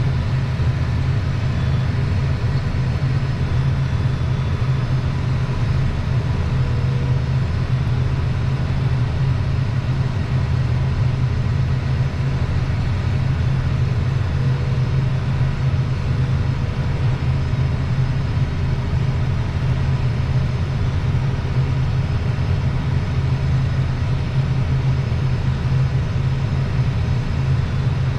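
Tractor engine running at a steady speed while driving a field pass: a constant low drone that does not change.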